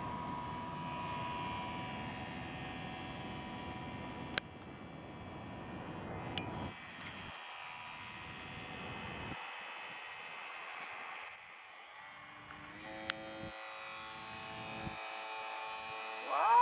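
Motor of a radio-controlled model floatplane buzzing as it runs across the water, fading as it moves away, with a few sharp clicks. A loud rising tone comes right at the end.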